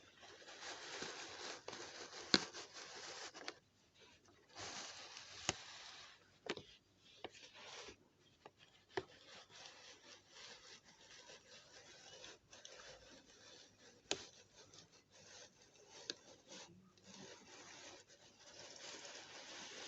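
Intermittent rubbing and scraping with a few sharp clicks, as of something being handled and moved over a hard surface.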